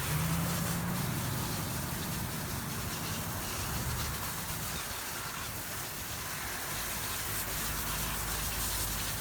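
Garden hose spraying a steady hissing stream of water onto a truck's engine.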